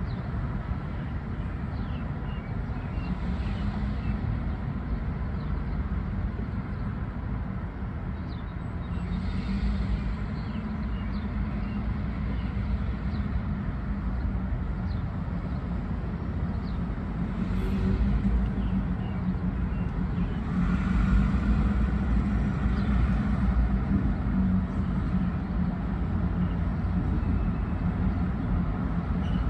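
Steady low rumble of a moving vehicle, getting somewhat louder about two-thirds of the way through.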